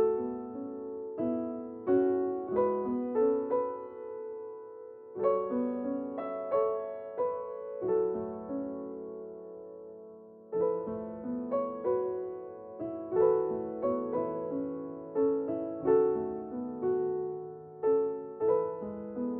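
Soft background piano music: gentle chords and short melodic phrases of struck, fading notes.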